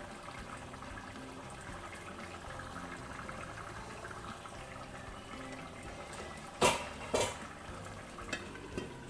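Beef curry bubbling steadily as it boils in an open pot. About two-thirds of the way through come two sharp knocks about half a second apart, then a couple of fainter ones.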